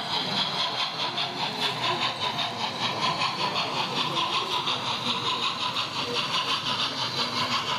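00 gauge model steam train running along the layout, giving a fast, even beat of about five a second over a steady hiss.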